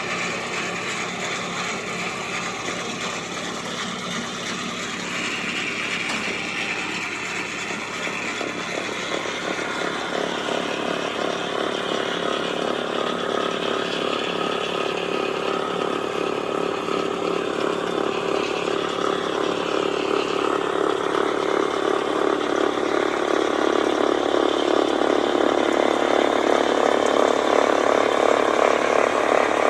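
Kubota LX2610 compact tractor's diesel engine running under load, driving a front-mounted Kubota BLMX3164 snowblower whose auger and impeller are turning and clattering as it clears snow. It grows steadily louder toward the end.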